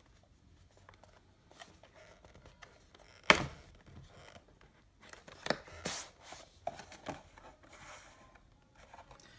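Packaging being handled and opened: scattered clicks, scrapes and rustling, with one sharp loud click or knock about three seconds in.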